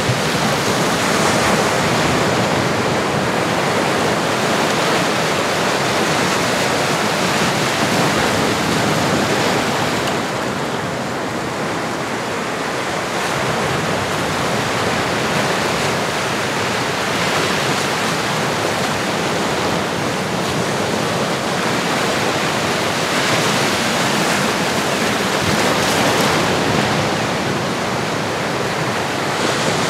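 Ocean surf: a steady rush of breaking and washing waves that swells and eases slowly, with a softer stretch about ten seconds in.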